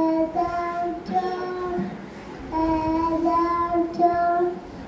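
A young boy singing solo, holding long, steady notes in short phrases, with a brief pause about two seconds in.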